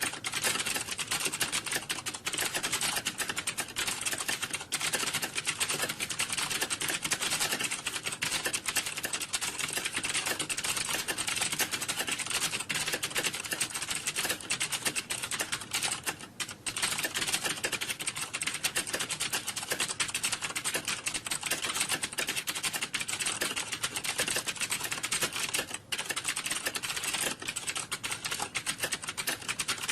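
Many computer keyboards being typed on at once, a dense unbroken clatter of key clicks like a typing-test exam hall, dropping out briefly twice.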